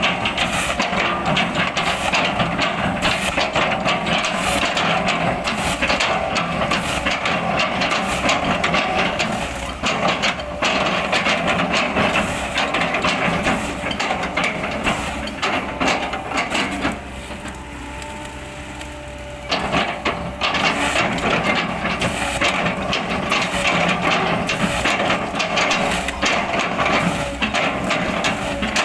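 Kobelco excavator's diesel engine running under load while its bucket crunches and splinters oil palm trunk wood, with many quick knocks and cracks. The crunching stops for about two and a half seconds around two-thirds of the way through, leaving the engine running alone, then resumes.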